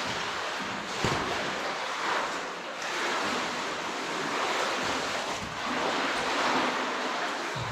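Steady rush of flowing cave water, swelling and easing, with a single sharp knock about a second in.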